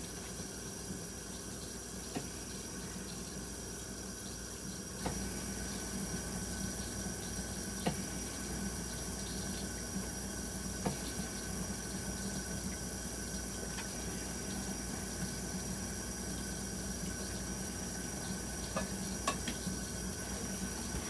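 Kitchen sink tap running, a steady hiss of water that gets louder about five seconds in, with a few short clinks of dishes or silverware.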